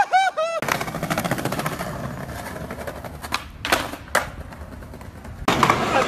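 Skateboard wheels rolling over tiled plaza pavement, making a fast rattling clatter from the joints. The clatter is broken about three times by sharp clacks of the board hitting the ground during flatground tricks. Near the end a louder, rougher rolling noise takes over.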